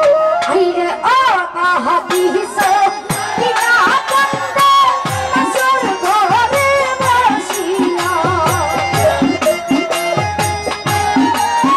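Live Bengali folk band music: a wavering lead melody over sharp percussion clicks, with deep hand-drum strokes that slide down in pitch coming in about three seconds in.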